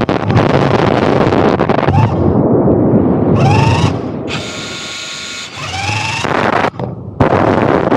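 Radio-controlled car's electric motor whining, rising in pitch twice as it speeds up, with a steady whine between the two. Underneath runs a rough noise of tyres and wind on coarse beach sand, and it dips briefly near the end.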